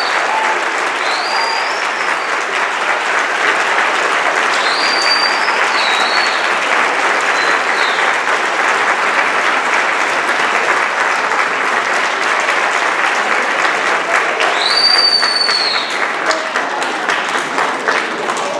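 Audience applauding, with a few high whistles rising in pitch at intervals. The applause thins into scattered separate claps near the end.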